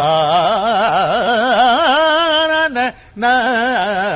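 A singer sings a sustained Indian classical raga phrase, with the pitch wavering in rapid ornamental oscillations. The voice breaks off briefly about three seconds in, then carries on.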